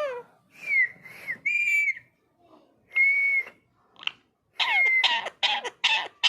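Indian ringneck parakeet whistling: several separate whistled notes with short gaps, some held steady and some falling, then a quicker run of falling calls in the second half.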